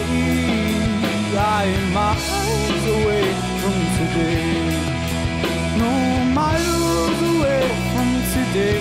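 Rock music with a steady beat, guitar and a wavering melody line.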